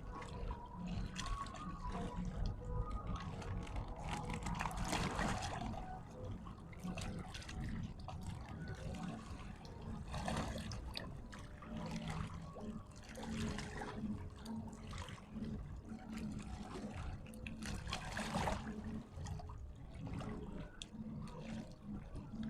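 Water sloshing and trickling, with scattered short knocks and rustles.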